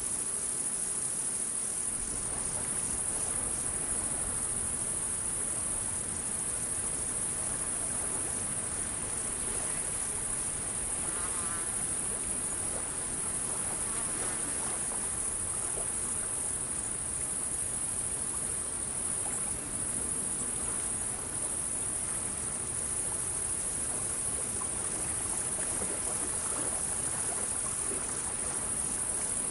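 Steady chorus of crickets, a continuous high-pitched chirring that neither starts nor stops.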